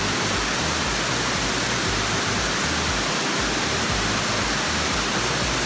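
Waterfall rushing steadily, a constant full-range hiss of falling water.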